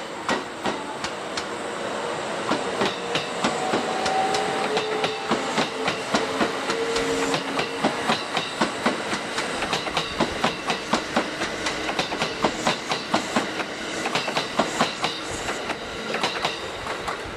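Electric commuter train running through the station, its wheels clicking rhythmically over the rail joints in a long, fast run of clacks.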